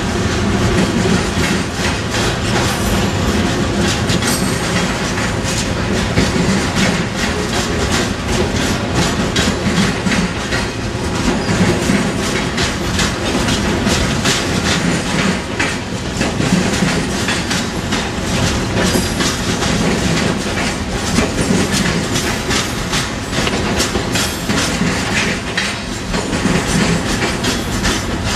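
Freight train cars rolling past at close range: a steady rumble of steel wheels on rail, with a rapid, uneven run of clacks as the wheels cross rail joints and switches.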